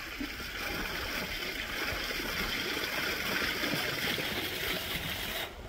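Steady rushing splash of water from a pond geyser jet, cutting off suddenly near the end.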